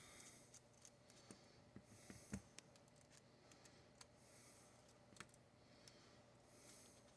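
Near silence with faint clicks and scrapes of a Phillips screwdriver working at a stubborn screw in a padlock body, the sharpest click a little over two seconds in. Soft breaths every couple of seconds.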